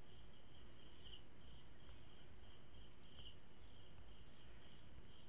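Faint chirping of insects, a pulsing high trill, over a low steady hiss.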